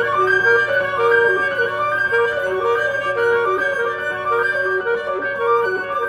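Flute, alto saxophone and piano trio playing contemporary chamber music: short notes alternating between a few pitches in a repeating figure, the kind of tiny fragment repeated and altered that the piece is built on.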